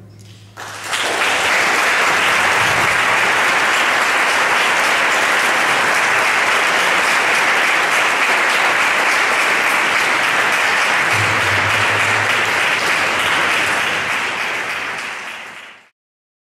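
An audience applauding steadily, starting about a second in as the orchestra's last note dies away, then quickly fading out near the end.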